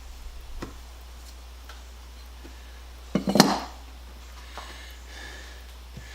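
A few light handling clicks, then a brief sharp clatter a little over three seconds in, as a hard object is knocked or set down during tool box disassembly.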